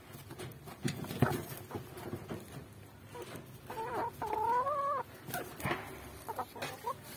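Chickens feeding, with a sharp knock about a second in and scattered small clicks. Around the middle, a chicken gives a wavering call in two parts, one short and one about a second long, followed by a few short chirps near the end.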